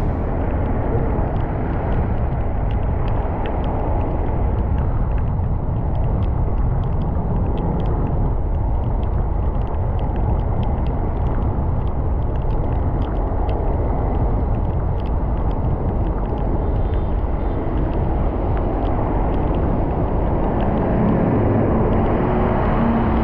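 Steady rain with a low rumble and many small scattered drop ticks. Near the end a low, steady hum joins in.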